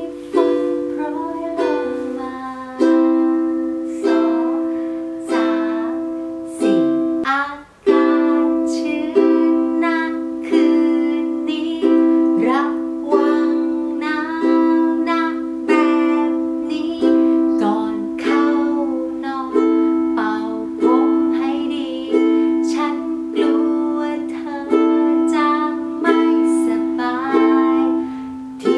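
A woman singing in Thai while strumming a ukulele through the chords F, G7, C and Am, with a strongly accented strum about every second and a half. The playing breaks off briefly about seven seconds in.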